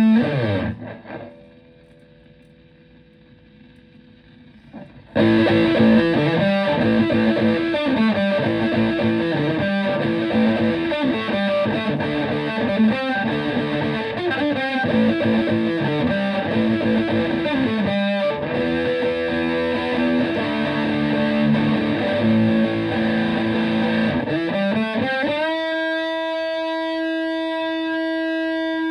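Epiphone Les Paul electric guitar through a Tone Bender MkI fuzz pedal and a Fender Twin Reverb–style amp. A held fuzzed note slides down and dies away in the first second, leaving a few seconds of quiet amp hiss. From about five seconds in a fuzzy riff plays, and near the end it slides up into one long sustained note.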